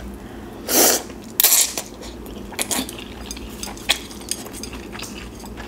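Ramen noodles slurped from chopsticks in two short bursts about a second in, then close-up chewing with many small wet mouth clicks.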